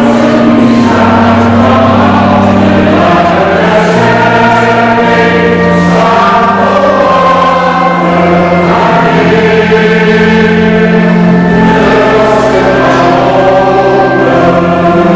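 Church choir singing a slow song, with held low notes underneath that change every second or two.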